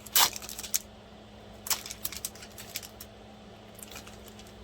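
Tablet packaging handled by hand: a sharp click just after the start, then a few lighter clicks and taps, over a faint steady hum.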